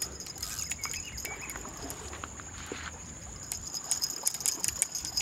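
Steady high-pitched insect drone over wind rumble on the microphone, with scattered light clicks.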